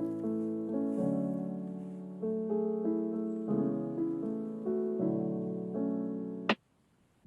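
Background piano music: gentle chords and melody notes, each struck and fading. It cuts off abruptly with a click about six and a half seconds in.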